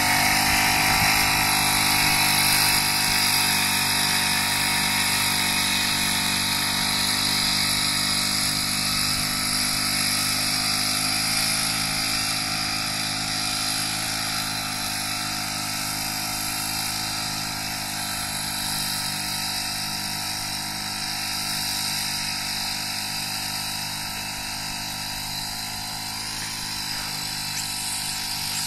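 Engine-driven backpack sprayer's small engine running steadily while spraying, growing gradually fainter as the wearer walks away.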